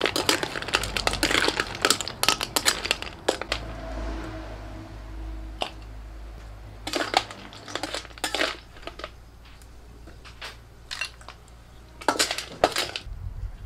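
Snail shells clattering and scraping against a steel wok as they are stirred with a metal spatula, in several bursts of rapid clicking.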